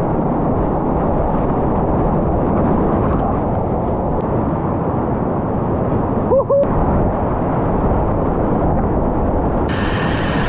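Whitewater rapids rushing through a rocky gorge, picked up close to the water by a kayak action camera: a loud, steady, low rush of churning water. It dips briefly about two-thirds through and turns hissier near the end.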